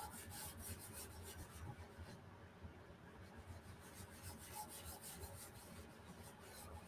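Faint swishing of a cloth rubbing finishing wax into a decoupaged surface in quick back-and-forth strokes, with a short pause a little after two seconds in.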